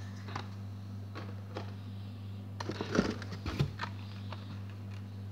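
Carded Hot Wheels cars being pulled from the cardboard shipping case: a few light clicks, then a short burst of cardboard and blister-plastic rustling and clatter about three seconds in, over a steady low hum.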